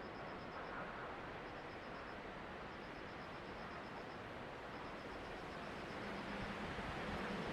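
Steady hiss of wind and rain from an approaching typhoon, with short runs of high, rapid chirps repeating every second or so.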